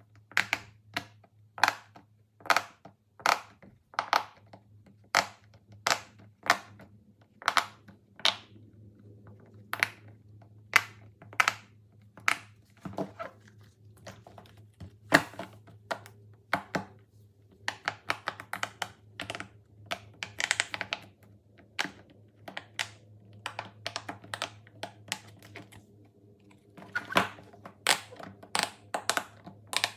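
Fidget toys being pressed and handled: a long run of sharp clicks and pops, roughly two a second, more crowded near the end, over a faint steady low hum.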